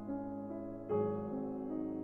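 Slow background piano music of held chords, with a new chord struck about a second in.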